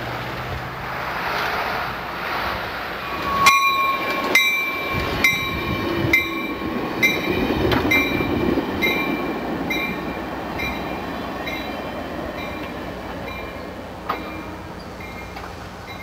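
A car passing, then an Amtrak passenger train's cars rolling slowly past, their wheels clicking over rail joints about once a second with a light metallic ring. The clicks fade gradually as the train goes by.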